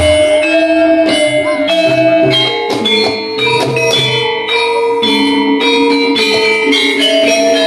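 Gamelan music accompanying an ebeg (kuda lumping) dance: metal percussion instruments ring out repeated, overlapping notes over a steady pulse of low beats.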